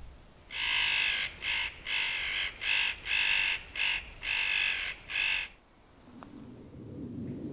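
A crow-family bird giving a run of about nine harsh, cawing calls in quick succession, each under half a second long, stopping a little past halfway through.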